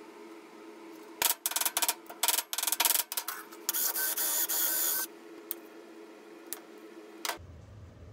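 Cordless drill running with a steady whine for about a second and a half, boring a small hole through a thin sheet-metal strip. Just before it comes a quick run of sharp clicks and knocks.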